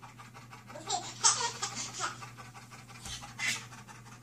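A chocolate Labrador panting, mixed with a baby's laughter, in louder bursts about a second in and again just past three seconds.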